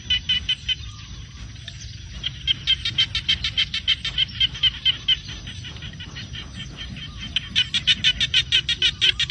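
An animal calling outdoors: rapid runs of short high chirps, about six a second, in three bouts with pauses between them.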